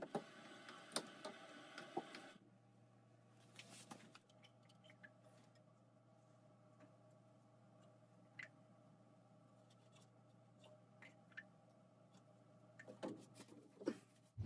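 Mostly near silence, with faint scattered clicks and taps from plastic drain pipe fittings being handled and fitted together. The clicks come more densely in the first couple of seconds and again near the end.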